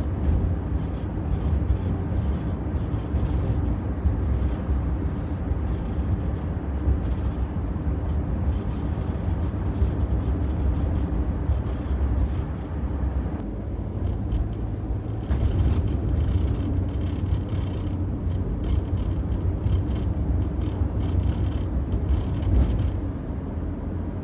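Inside a moving Nissan Caravan: steady road and drivetrain rumble, with fast irregular creaking and rattling from the unoccupied rear seat. This 'gyuru-gyuru' noise goes away when someone sits in the seat. The creaking pauses briefly about halfway through and stops near the end.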